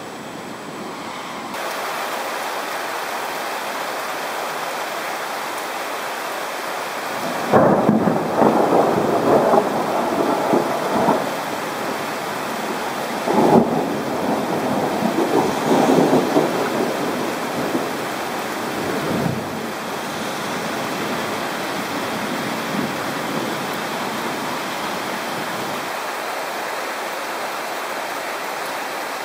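Thunder in two long peals over steady rain: the first breaks in sharply about a quarter of the way in, and the second follows a few seconds later, with a weaker rumble trailing after it.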